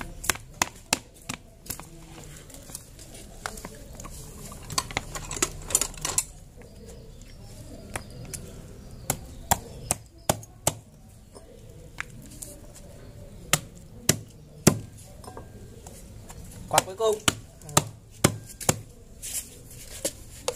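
Wooden pestle pounding green nhót (oleaster) fruit in a plastic bowl: irregular sharp knocks in clusters, with short pauses between them.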